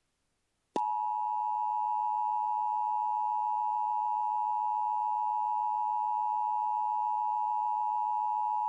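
Emergency Alert System attention signal: two steady tones just under 1 kHz sounded together as one unbroken beep, starting under a second in after a short silence and holding at an even level.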